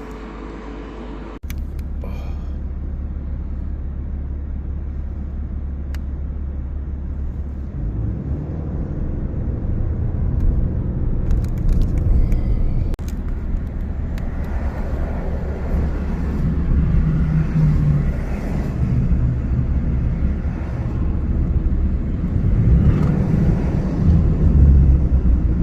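Low rumble of a vehicle driving, steady at first and heavier and more uneven from about eight seconds in.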